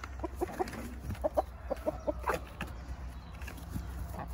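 Buff Columbian Brahma chickens clucking: a string of short, irregular clucks from several birds.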